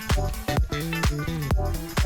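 Upbeat electronic dance music with a steady kick-drum beat and bass line.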